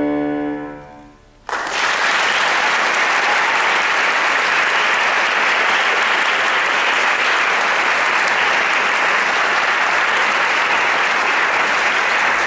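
A grand piano's final chord dies away, then audience applause breaks out suddenly about a second and a half in and carries on steadily.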